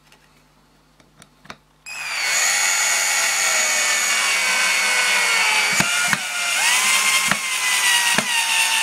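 DRA-12/P 12-volt cordless drill-driver driving a screw into a wooden board. After a few small clicks the motor starts about two seconds in and runs with a whine that sinks in pitch as the screw takes load, with a few sharp clicks in the second half.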